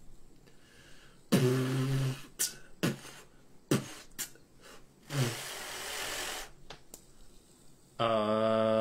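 A man making beatbox-like mouth noises: a short buzzy vocal burst, a few sharp clicks and a longer breathy hiss, then near the end he starts humming one steady held note.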